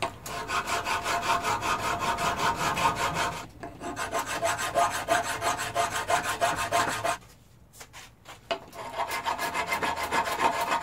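Hand file draw filing an aluminium block, a dense rasping scrape stroke after stroke as the teeth shave the metal flat. There is a brief pause about a third of the way in and a longer one about two-thirds in.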